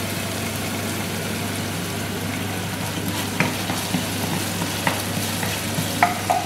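Onion and tomato paste sizzling in a non-stick frying pan as a wooden spoon stirs them, with a few sharp taps and scrapes of the spoon against the pan in the second half.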